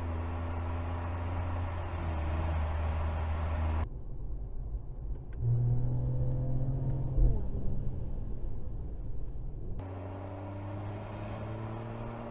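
Mercedes-Benz E-Class sedan engine running under acceleration, its pitch climbing in places, with the sound changing abruptly about four seconds in and again near ten seconds.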